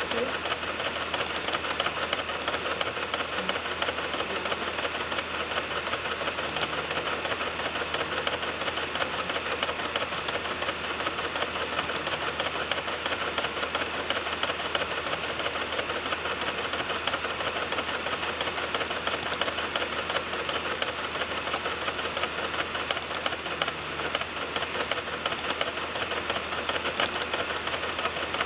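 DVD drive reading a burned disc, spinning with a rapid, continuous clicking of the laser head seeking as it loads files.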